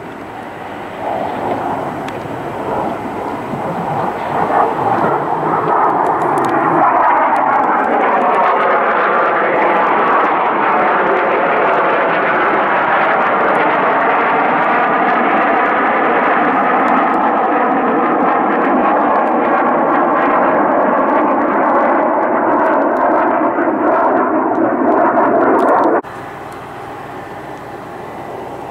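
Jet engines of a pair of military fighter jets passing overhead in formation: loud jet noise that builds over the first several seconds and holds, with a slowly sweeping, phasing quality. It cuts off suddenly about 26 seconds in, leaving fainter jet noise.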